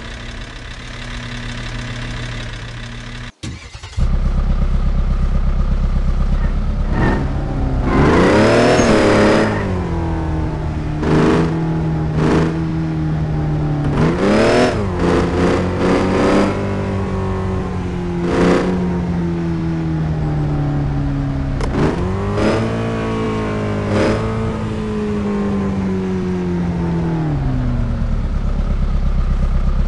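A vehicle engine idling with a lumpy rumble, then revved again and again in blips that climb and fall in pitch. The longest rev comes about nine seconds in, with a cluster around fifteen seconds and another around twenty-three.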